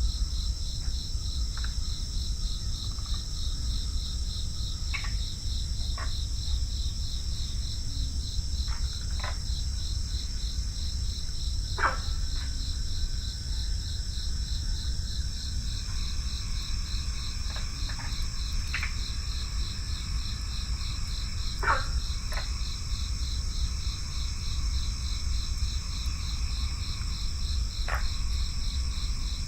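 A chorus of crickets chirping steadily: a continuous high-pitched, rapidly pulsing trill, over a low rumble.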